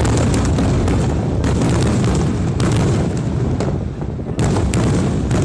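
Fireworks display: aerial shells bursting overhead in quick succession, a string of booms about a second apart over a continuous low rumble.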